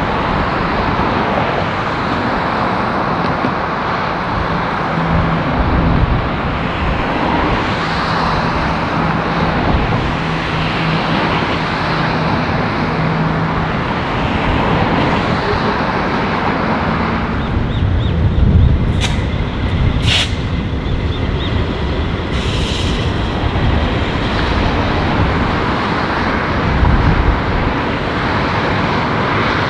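Two diesel-electric locomotives hauling a long passenger train approach at low speed, their engines running with a steady low hum and the train rumbling along the track. Two sharp clicks come about two-thirds of the way through.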